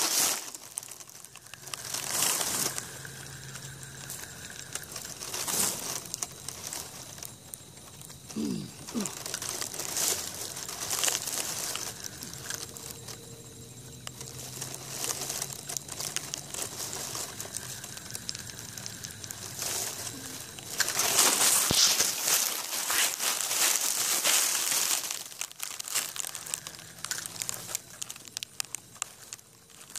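Close rustling and crackling of dry grass stems brushing against the phone and its microphone, coming in uneven bursts and loudest for a few seconds about two-thirds of the way through.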